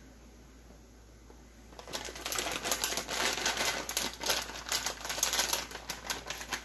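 Plastic bag of shaved almonds crinkling and crackling as it is handled and tipped to pour, starting about two seconds in and stopping near the end.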